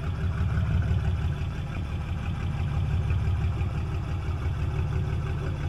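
A fishing boat's engine idling steadily, a low, even hum that does not change.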